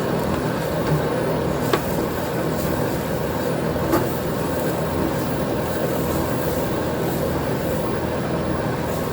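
Electromagnetic flat pot roasting machine running with a steady mechanical noise, with a couple of light knocks about two and four seconds in.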